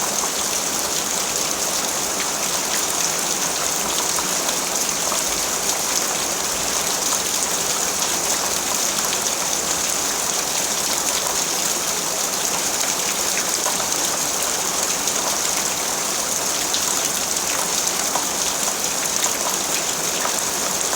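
Steady rain falling, an even hiss of drops with fine patter from individual drops hitting a surface.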